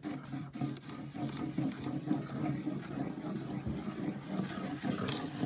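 Felt-tip marker scribbling quickly across paper on a wooden desk, a continuous scratchy rubbing.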